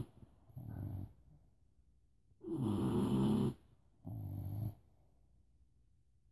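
Snoring in separate snores with pauses between: a short snore just under a second in, a longer, louder one about two and a half seconds in, and another short one about four seconds in.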